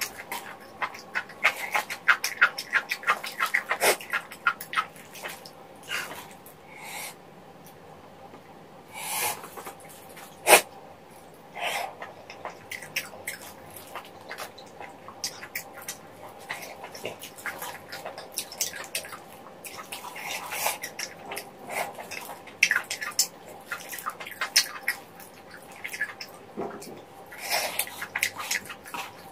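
Close-miked eating of chicken feet rabokki: wet chewing, lip-smacking and short slurps as the spicy chicken feet, rice cakes and noodles are eaten. The mouth sounds come in dense runs of small clicks, with a sharp click about ten seconds in.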